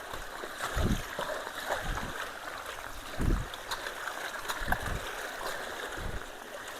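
Water running through roadside culverts, a steady rushing and gurgling, with several short, dull low thumps along the way.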